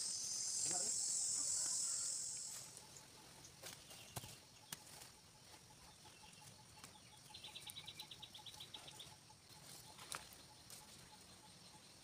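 Insects buzzing, high-pitched and steady, stopping about two and a half seconds in. After that, faint outdoor ambience with a few light clicks and a quick chirping trill a little past the middle.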